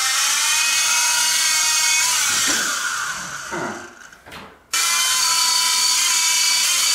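Protocol Skyline G-Series coaxial RC helicopter's electric motors and rotors running with a steady high whine. About two and a half seconds in the whine sinks and nearly dies away, then about a second later it cuts back in suddenly at full pitch as the helicopter lifts into a hover.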